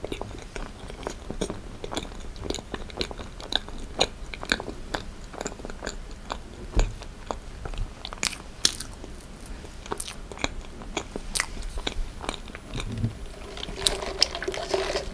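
Close-miked chewing of a dense, creamy ice box cake (soft cookie layers and heavy cream), with many short mouth clicks throughout. The clicks are sharp and irregular, and there is a fork against the cake partway through.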